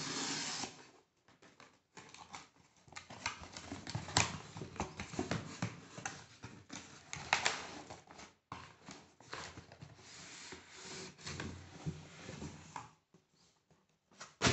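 Corrugated cardboard shipping box being opened by hand: a long rasping tear as the seal along its seam is pulled open, then the flaps being flexed and folded back, with irregular rustling, scraping and sharp knocks of cardboard.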